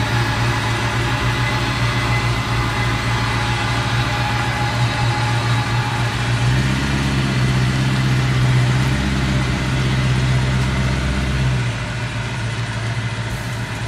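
Vehicle engine idling with a steady low hum. It grows louder for about five seconds midway, then drops back.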